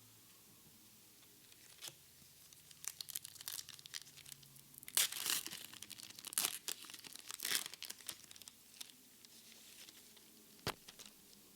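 Foil wrapper of a Japanese Pokémon TCG booster pack being torn open and crinkled: a run of crackly tearing and rustling, loudest in the middle, with one sharp click near the end.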